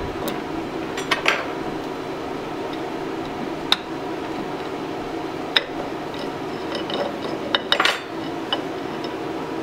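A butter knife clinking and scraping against an aluminium bait injection mould as it pries the mould halves apart: a few sharp single metallic clinks, then a quick louder cluster near the end as the top plate comes away.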